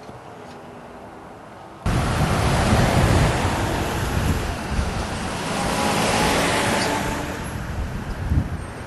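Loud rush of road traffic mixed with wind noise on the microphone, cutting in abruptly about two seconds in. Before it, a quiet steady hiss.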